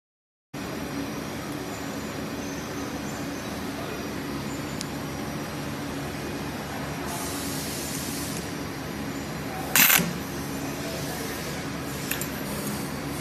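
Steady machine hum, broken about three-quarters of the way in by one short, loud crack of a stud welding gun firing an insulation pin onto a steel plate.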